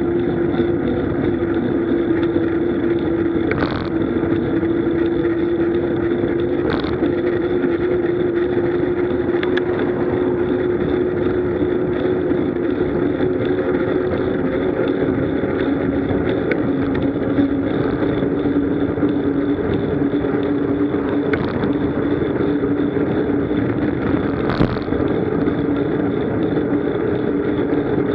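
Steady wind and road rush on a bike-mounted camera as a road bike rolls along asphalt at about 30 km/h, with a steady low hum and a few brief knocks.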